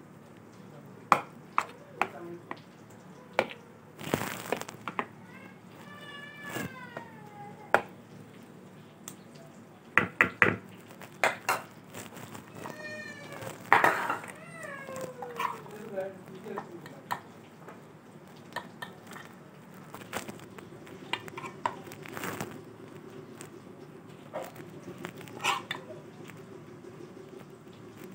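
A cat meowing twice, two drawn-out calls that fall in pitch, among the clinks and scrapes of a metal spoon against a bowl of yogurt.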